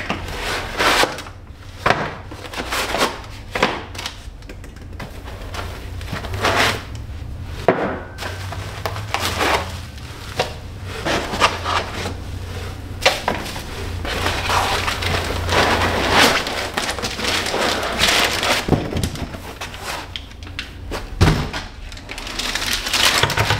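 Unpacking noise: foam packing, cardboard and plastic-bagged parts rubbing and rustling as they are pulled out, with irregular light knocks as metal parts are handled and set on the bench. A low steady hum runs underneath.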